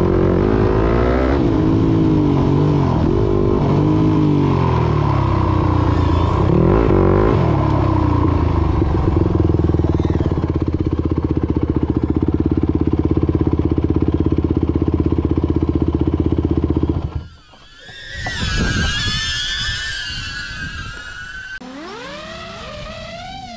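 Motorcycle engine revving up and down several times, then holding a steady high speed for several seconds. It cuts off abruptly, and electronic music with sliding, siren-like synth tones takes over near the end.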